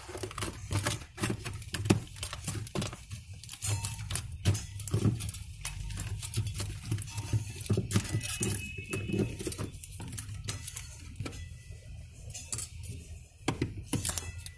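Irregular clicks, clinks and foil crinkling as hands work among the foil-wrapped parts by a refrigerator's evaporator coil, over a steady low hum.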